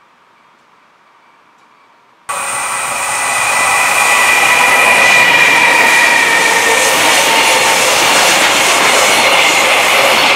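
A container freight train passing close by at speed: a loud, steady rush of wheels on rail with a high whine through it. The sound cuts in abruptly about two seconds in, after faint room tone.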